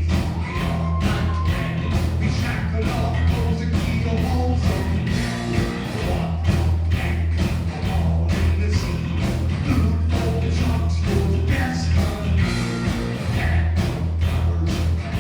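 Heavy metal band playing live: distorted electric guitars, bass and a pounding drum kit at a steady beat, with a singer's voice over the top.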